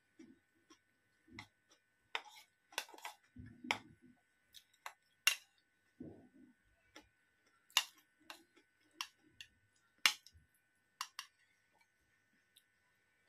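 Metal spoon clinking and scraping against a bowl while eating: about a dozen sharp, irregularly spaced clinks, with soft chewing and mouth sounds between them.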